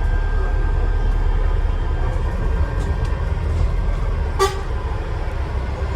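Scania Enviro 400 double-decker bus heard from inside, running slowly with a steady low engine and road rumble and a faint, steady high whistle from the turbocharger. About four and a half seconds in comes one brief, sharp pitched sound.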